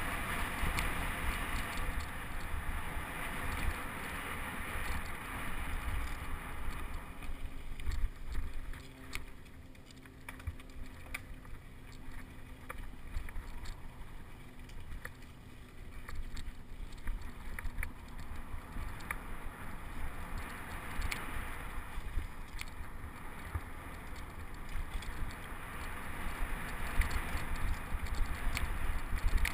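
Mountain bike ridden over a dry dirt trail, heard from a helmet-mounted camera: wind buffeting the microphone, tyres running over dirt and loose gravel, and scattered clicks and rattles from the bike. The noise eases off for several seconds in the middle, then builds again.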